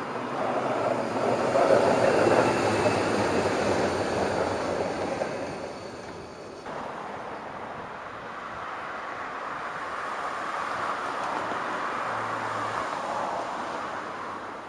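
A tram running past with a steady rumble of wheels on rails, loudest a second or two in. The sound changes abruptly about halfway through, then swells again as another vehicle passes.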